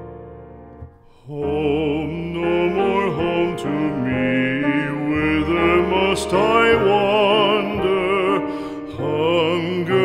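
Background music for a slow song: a piano chord fades, then about a second and a half in a singing voice with wide vibrato comes in over piano accompaniment.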